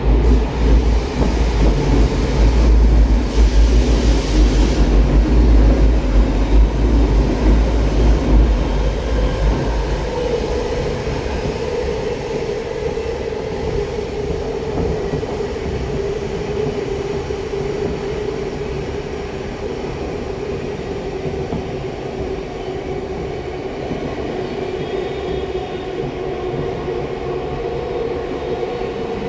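Tokyo Metro 05 series subway train with permanent-magnet synchronous traction motors running in a tunnel. There is a heavy low rumble of wheels on rail for about the first ten seconds, then the run goes quieter and a steady motor whine takes over.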